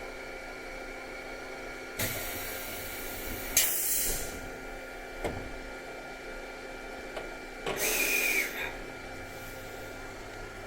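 A JR Central 373 series electric train standing at the platform, its equipment giving a steady high hum. Compressed air hisses sharply three times: once about two seconds in, again just after, and once more near eight seconds.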